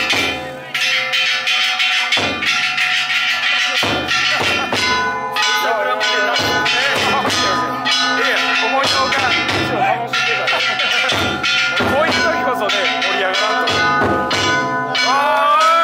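Ishidori festival cart's hand-struck bronze gongs (kane) clanging without a break over heavy taiko drum beats that come about every one to two seconds.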